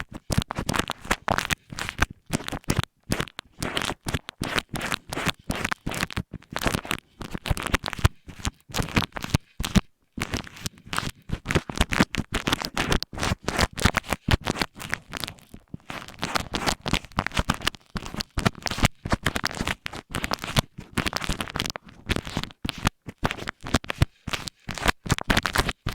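Close-miked ASMR scratching on an earphone microphone: rapid, irregular strokes in short runs with brief pauses.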